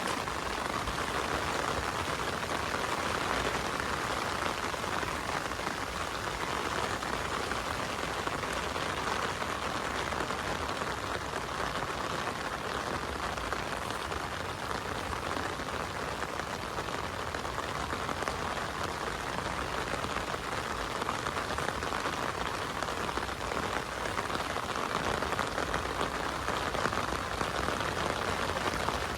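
Heavy rain falling steadily, a dense, even patter with no let-up.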